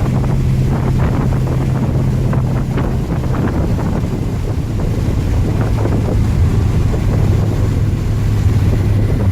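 V8-swapped Volvo's engine drone and road and wind noise, heard from inside the cabin while driving. The engine's hum drops in pitch a little over three seconds in and then holds steady. A few faint knocks come from the road surface early on.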